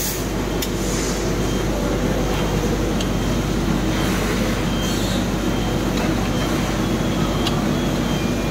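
Automatic armature testing machine running: a steady mechanical hum with several steady low tones, a few sharp clicks, and a short hiss about five seconds in.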